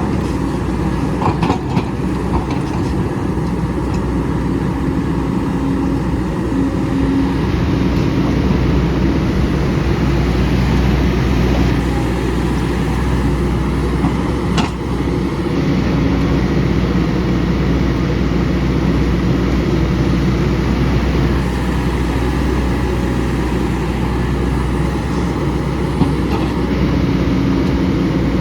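Hydraulic excavator's diesel engine running steadily under work, with a few sharp knocks.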